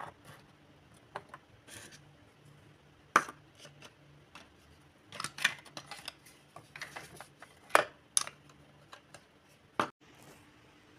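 Hard plastic toy cookware, utensils and play fruit clicking and clattering as they are picked up and set down on a tabletop, in scattered sharp knocks, the loudest about three seconds in, near eight seconds and just before ten seconds.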